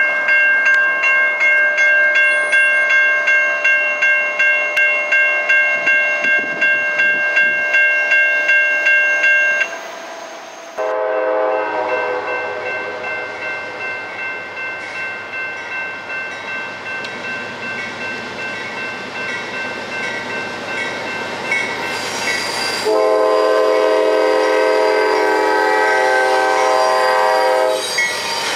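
Railroad crossing bell ringing about twice a second. After a break the bell carries on more faintly while a Norfolk Southern freight locomotive's air horn sounds, briefly about eleven seconds in and then in a long loud blast over the last five seconds as the train reaches the crossing.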